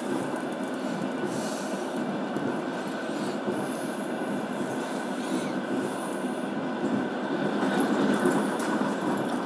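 Passenger train running at speed, heard from inside the carriage: a steady rumble of wheels on the rails with a thin, steady whine above it, growing a little louder near the end.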